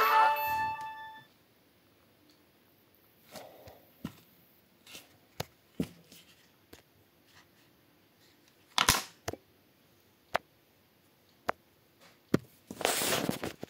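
A short electronic beep of several steady tones with a quick rising glide at the start. Then come scattered clicks and light handling noises, with a longer rustle near the end.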